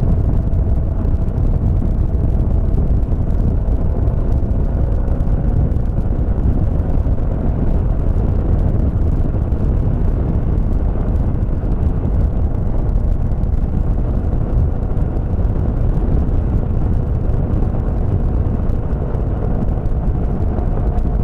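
Small motor scooter being ridden, its engine droning steadily under heavy wind rush on the camera microphone.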